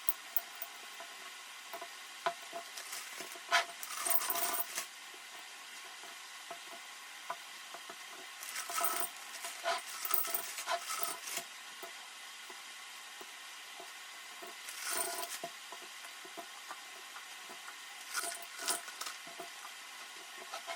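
Small items handled at a kitchen counter: scattered light clicks and taps, with a few short spells of rustling and clinking, over a faint steady hiss.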